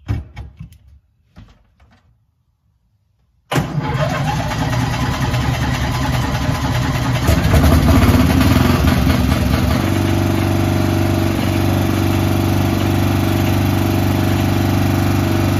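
The gasoline engine of a homemade scale Sherman tank bursts into life on choke and runs loud, rising and rougher for a couple of seconds, then settles into a steady idle. A few faint handling sounds come first, then a moment of silence.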